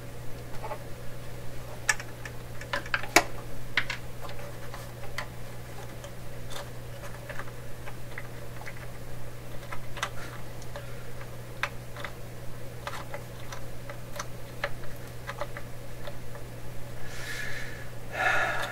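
Scattered small clicks and taps of hands handling wires and small parts on the metal chassis of a 1928 RCA Victor Model 28V radio, over a steady low hum.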